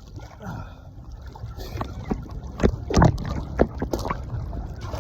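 Wind rumbling on the microphone over moving seawater, with a few sharp knocks around the middle, the loudest about three seconds in.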